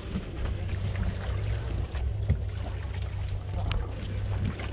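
A fishing boat's engine running with a steady low drone, with scattered light knocks from men scooping catch out of a jellyfish-filled net by hand.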